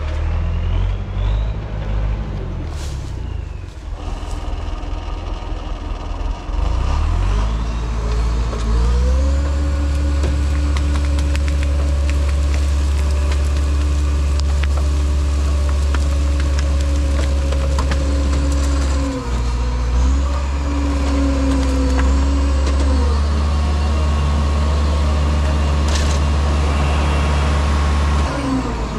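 LKT 81 Turbo skidder's turbo diesel engine revving up a few seconds in and held at high revs for about twenty seconds to drive the cable winch, with a short dip about two-thirds through, then dropping back toward idle at the end. The winch is pulling heavily, which the driver puts down to bent discs in it.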